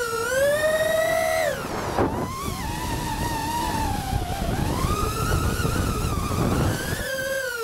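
FPV racing quadcopter's motors and propellers whining, the pitch rising and falling with the throttle. About two seconds in the pitch drops sharply, then the whine returns with a rushing noise of air over the props until near the end.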